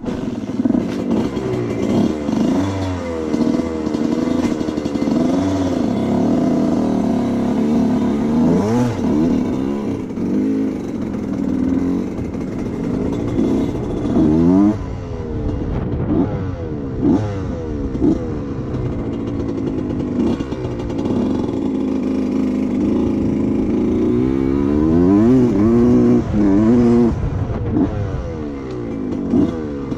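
A 1990 Suzuki RM125's single-cylinder two-stroke engine being ridden. Its pitch climbs and drops again and again with the throttle, with several sharp swoops up and down in the second half.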